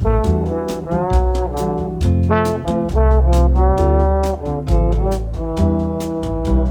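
Background music with a steady beat: brass instruments playing a melody over a deep bass line.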